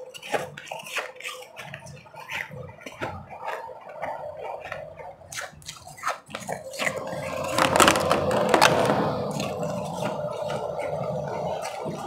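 Close-up crackling and crunching of refrozen powdery ice in a clear plastic tray, a run of sharp clicks that swells into a louder, denser crunch about eight seconds in.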